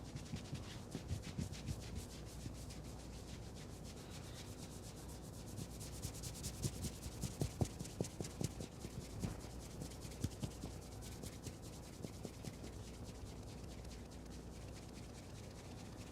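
Head massage: hands rubbing and scrubbing through hair and over the scalp, a fast crackling rub, with soft thuds mixed in near the start and again from about six to ten seconds in.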